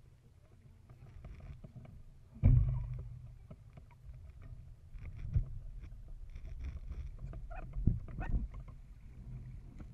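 A Feva sailing dinghy under way, with a steady low rumble of wind and water. A sudden loud thump comes about two and a half seconds in, and a few lighter knocks follow later as the crew shift about the boat.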